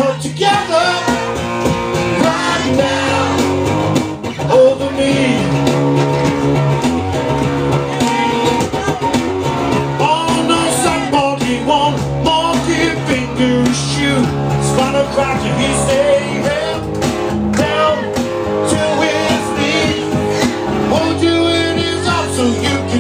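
Live music: a man singing into a microphone while playing guitar, a continuous rock-blues song.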